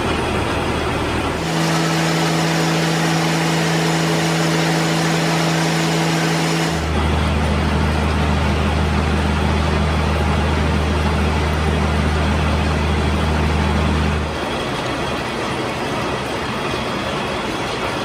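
Vertical gear hobbing machine running, its hob cutting helical gear teeth under flowing cutting oil: a steady mechanical hum over a dense hiss. The hum shifts in pitch three times.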